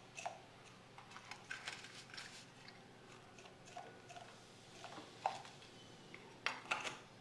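Faint, scattered clicks and small crackles as baking soda is spooned into a glass bowl of hot water, vinegar and lemon, where the mixture foams up white; a few louder ticks come near the end.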